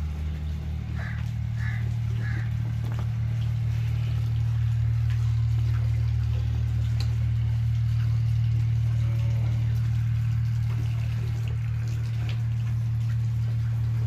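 Steady low hum of a running motor, with a light hiss above it and three short high chirps about a second in.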